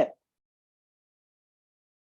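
The last of a spoken word cut off in the first moment, then dead silence.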